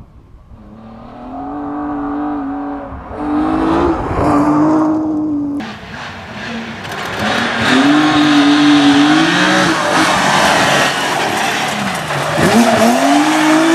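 Rally car engines revving hard on a gravel stage, the pitch climbing and dropping with gear changes as the cars approach and pass, with a hiss of gravel thrown up by the tyres. The sound cuts abruptly about five and a half seconds in, and a second car comes through, revving and lifting off.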